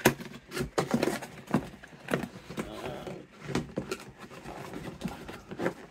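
A cardboard train-set box being handled and opened: a series of sharp knocks and taps with scraping and rustling of card, the sharpest knock right at the start.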